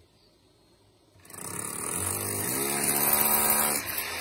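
Near silence for about a second, then an electric drill with a long masonry bit starts boring into a concrete block, its motor rising in pitch as it spins up and then running steadily, dropping off shortly before the end.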